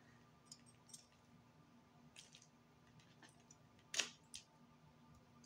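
Near silence with a few faint clicks of metal kitchen tongs handling fried cube steaks, over a faint steady hum. The sharpest click comes about four seconds in.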